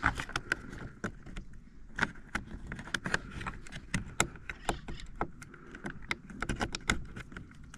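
Irregular light clicks and taps of small plastic parts being handled and pushed into place inside a car door: electrical plugs and a small part turned until it pops into place.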